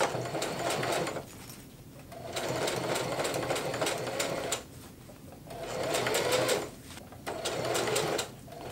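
Singer Heavy Duty household sewing machine stitching in several short runs, stopping and starting about five times as the fabric is guided under the foot.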